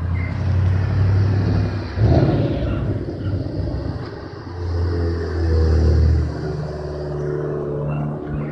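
Loud car engines revving and accelerating, with a sharp surge about two seconds in and another long loud pull around five to six seconds.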